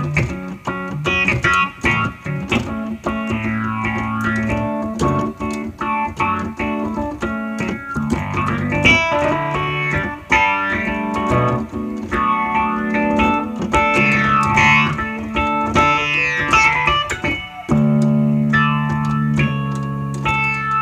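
Electric piano sound from a stage keyboard, played live through a phaser effect: an improvised passage of chords over held low bass notes, with many quick note attacks. The mechanical clack of the keys can be heard along with the music.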